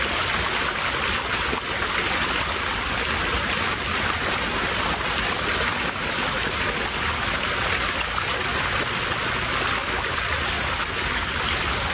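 Shallow water running steadily along a muddy irrigation ditch, a constant rush with no break.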